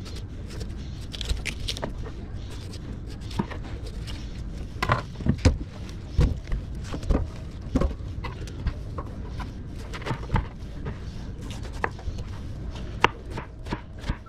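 Kitchen knife cutting a peeled watermelon on a plastic cutting board: irregular knocks of the blade against the board and short scrapes as it slices through the flesh, over a steady low hum.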